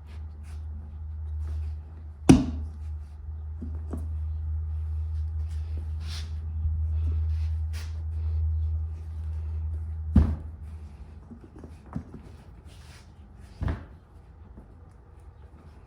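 A few sharp knocks and clunks, the loudest about two seconds in and again about ten seconds in, with smaller clicks between, over a steady low hum.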